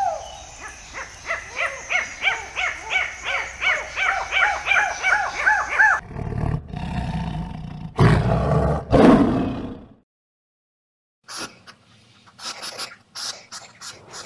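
Ring-tailed lemurs calling in a fast run of short cries that rise and fall, about three a second, for the first six seconds. Then lions give three deep, heavy roaring calls, the loudest part. After a second's silence, a porcupine snuffles and rustles with short clicks.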